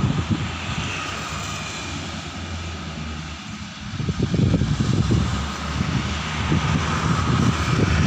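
Diesel railcar engine running steadily with a faint whine, under heavy low rumbling from wind buffeting the microphone, which eases for a moment near the middle and then picks up again.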